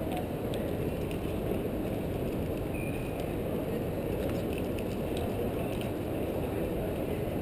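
Steady low rumble of an Airbus A380's four jet engines at taxi power as the aircraft rolls slowly in toward the gate.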